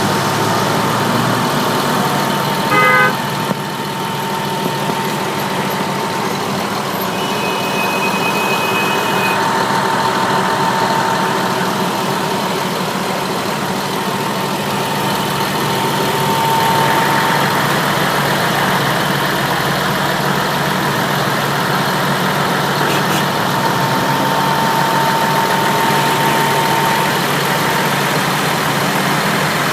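Heavy vehicle engines running steadily at idle, with a short horn blast about three seconds in.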